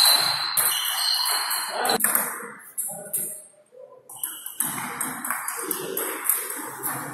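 Table tennis balls clicking off bats and tables in quick succession during a rally, with a short lull about three seconds in, over background voices.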